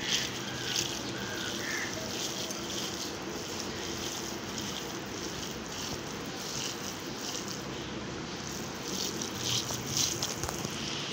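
Hands kneading and squeezing raw beef mince mixed with chopped onion, spices and crumbled omelette in a glass bowl, giving soft wet squishing that comes and goes, over a steady low hiss.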